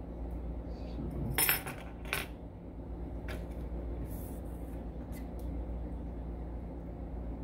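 Small metallic clicks and clinks from handling the brass core and sliders of a disassembled Evva 3KS lock with a pick, as upside-down sliders are taken out to be flipped; the loudest clinks come about one and a half and two seconds in, with a few fainter ones later. A steady low hum runs underneath.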